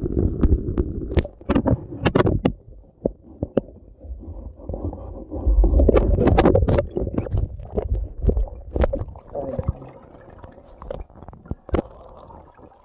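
Water gurgling and splashing, with scattered knocks and scrapes, as a phone is washed in water by hand.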